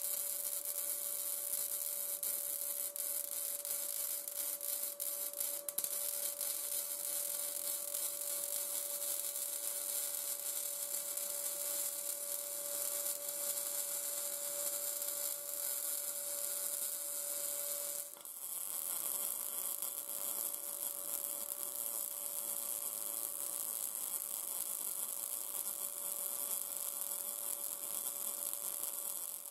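MIG welding arc hissing and crackling steadily, with the steady whine of a cordless drill turning the rotary table. The sound breaks briefly about 18 seconds in and resumes with a different whine.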